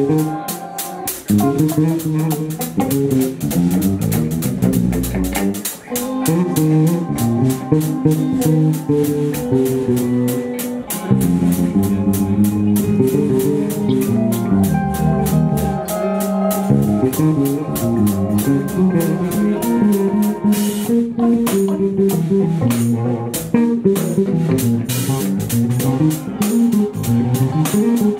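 Live instrumental funk-jazz band playing: electric guitar lines over electric bass and a drum kit with steady, busy cymbal and drum strokes.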